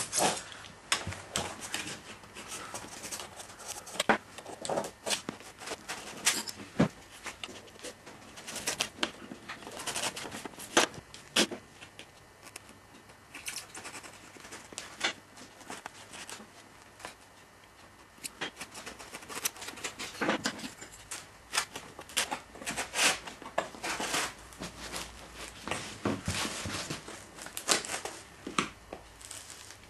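Hobby knife cutting through a foam wing beside a motor plate: short scratching strokes at irregular intervals, quieter for a while in the middle.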